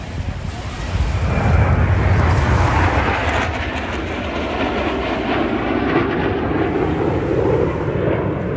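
Blue Angels F/A-18 jet flying past overhead, a loud jet roar that swells about a second in, peaks for a couple of seconds, then carries on steadily.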